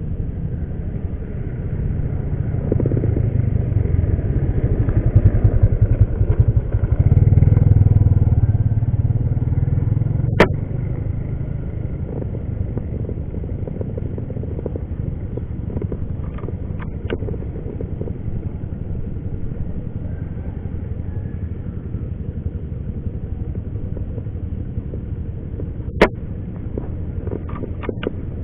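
Two sharp cracks about fifteen seconds apart, typical of shots from a Weihrauch HW100 PCP air rifle. Each is followed a second or so later by a few lighter clicks, over a steady low rumble that is heaviest in the first eight seconds.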